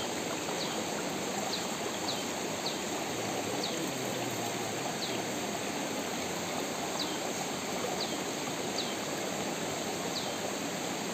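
Steady rush of shallow stream water running over rocks. Over it, a short, high chirp that falls in pitch repeats about a dozen times at uneven intervals.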